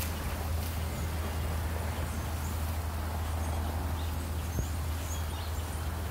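A large flock of blackbirds calling, with many short high calls scattered throughout over a steady low rumble.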